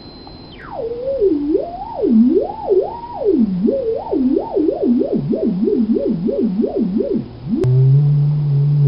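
Mini theremin's electronic tone: a high steady whistle that swoops down within the first second, then wavers up and down in pitch, the swings growing faster like a warbling siren. Near the end a click, and it switches to a steady low tone.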